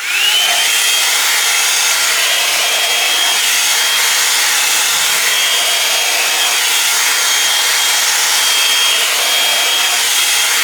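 Drybar Double Shot blow-dryer brush switched on at full power: its motor whines up to speed in the first half second, then runs steadily with a high whine over a loud rush of air.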